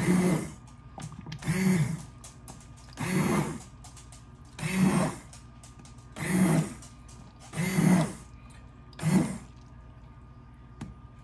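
Handheld stainless-steel immersion blender pulsed in seven short bursts about a second and a half apart, its motor whirring as it churns thick split pea soup in the pot. The short pulses loosely blend the soup, giving it only a partly smooth texture.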